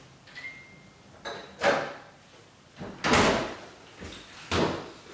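Three clunks and knocks of kitchen storage being opened and shut, the loudest and longest about three seconds in.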